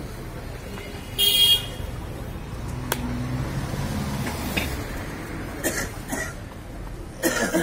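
Outdoor street background with traffic: a short vehicle horn toot about a second in, a sharp click near three seconds, and brief voices near the end.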